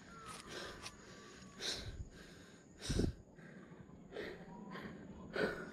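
A man breathing hard and heavily, about five deep breaths roughly one a second, the loudest about three seconds in: he is out of breath and tired from climbing a steep hill path.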